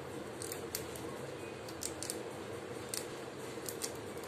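Pet rat gnawing hard food with her incisors: sharp, crisp crunching clicks at irregular intervals, about eight in all, over a steady background hiss.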